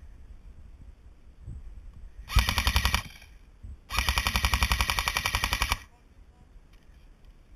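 Airsoft gun firing two rapid full-auto bursts: a short one about two seconds in, then a longer one of about two seconds.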